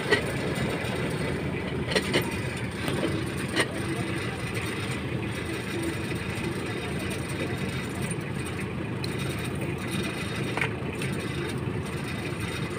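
Steady low rumble of motor traffic, with a few sharp clicks: one at the start, two about two seconds in, one about three and a half seconds in and one near the end.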